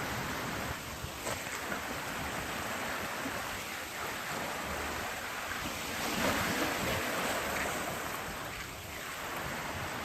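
Sea surf washing in, mixed with wind on the microphone, with several swells in level and the loudest about six seconds in.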